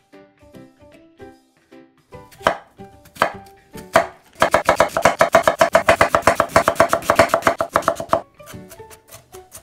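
A chef's knife cutting half an onion on a wooden cutting board: a few separate cuts about two seconds in, then fast, even chopping for about four seconds as the onion is diced small, stopping suddenly. Soft plucked background music before and after the chopping.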